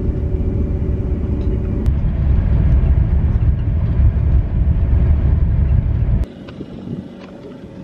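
Steady low rumble with a faint steady hum, like a vehicle in motion. It drops off abruptly about six seconds in to a much quieter background.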